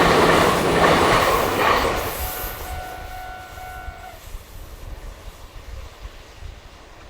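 Meitetsu electric train running past on the rails, loud for the first two seconds and then fading as it moves away. A steady tone sounds under it for a second or two and cuts off suddenly about four seconds in.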